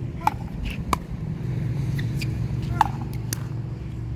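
Pickleball rally: paddles striking the hollow plastic ball back and forth, about five sharp hits each with a short ring, over a steady low hum.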